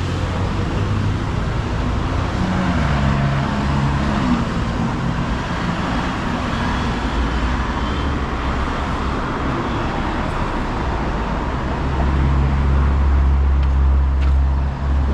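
Road traffic noise: motor vehicles running along the street, with a low engine rumble that grows louder in the last few seconds.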